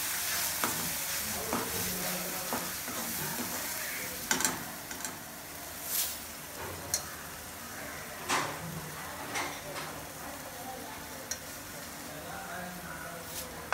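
Onion-tomato masala sizzling in a steel kadai as a perforated steel ladle stirs it, with sharp clinks of metal on metal now and then. The sizzle is loudest in the first few seconds, then settles lower.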